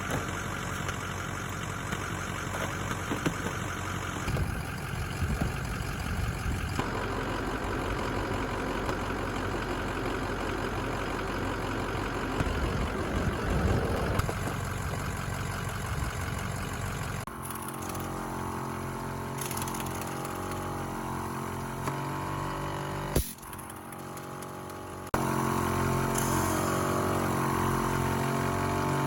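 Smittybilt 2781 portable air compressor running steadily. It is supplying an air impact gun, but it cannot deliver enough air flow without a tank to run the gun. The sound changes abruptly several times and settles into a steady pitched hum in the second half.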